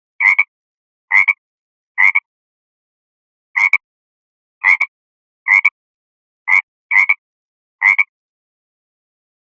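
Frog croaking: nine short, loud croaks, each a quick double pulse, about one a second with a longer pause after the third.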